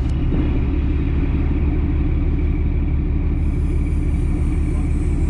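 Boat engine running with a steady low rumble.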